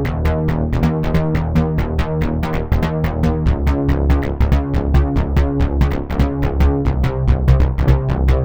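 Yamaha TG-77 FM synthesizer playing an electronic patch demo: a quick sequenced pattern of short notes, about six or seven a second, over a sustained bass.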